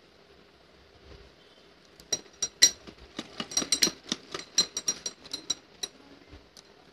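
Bangles on the wrists clinking against each other as the hands move over the fabric: a quick, irregular run of bright little clinks that starts about two seconds in and stops about six seconds in.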